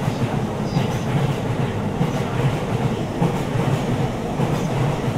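JR East E233 series electric train passing through a station, its wheels thumping over rail joints in a steady repeating clickety-clack over a continuous running rumble.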